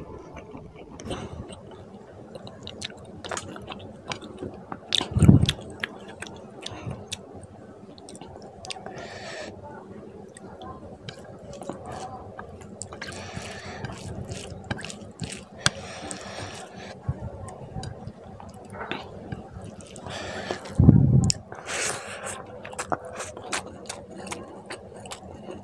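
Close-miked wet chewing and lip-smacking of fish curry and rice eaten by hand, with squelching as fingers mix rice into the gravy. Two loud low thumps stand out, about five seconds in and again about twenty-one seconds in.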